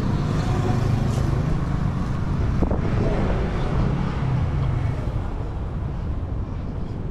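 Street ambience with a motor vehicle's engine running nearby, a low steady rumble that eases off after about five seconds. A single sharp click falls near the middle.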